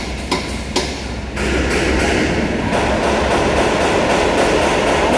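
A few sharp hammer knocks on metal in the first second, then a loud, steady, noisy machine sound that starts about a second and a half in and keeps going.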